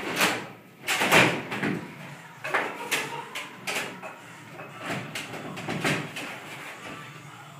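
Table football (baby-foot) in play: the ball and the rods knocking and clacking sharply against the table at irregular intervals.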